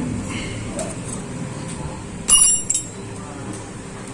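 A metal hand tool clinks against metal with a short bright ring about two seconds in, followed by a smaller click, during valve clearance adjustment on a motorcycle engine.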